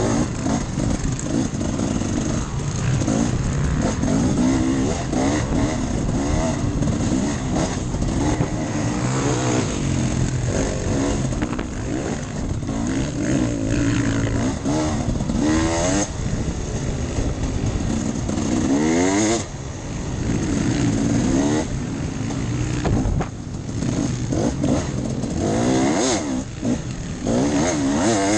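Enduro motorcycle engine running under way, its pitch rising sharply several times as it is revved and falling back between, over a steady rushing noise.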